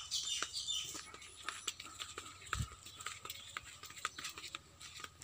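Irregular light taps and clicks of footsteps on a dirt path mixed with handling noise from a hand-held phone, with a soft low thump about halfway and a faint steady low hum underneath.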